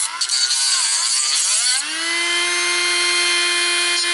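Dremel rotary tool whining as it grinds out the axle grooves in a die-cast toy car body, with a gritty hiss of cutting. Its pitch sags under load about a second in, then rises and holds steady.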